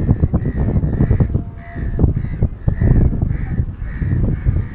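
A steady run of short, harsh bird calls, about two a second, typical of crows cawing, over loud low rumble and buffeting from wind on the microphone.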